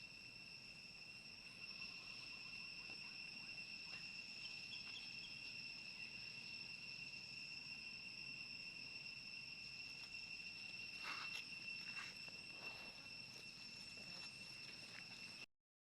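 Insects droning steadily in one high, unbroken tone, with a few faint clicks and rustles about eleven seconds in. The sound cuts out abruptly near the end.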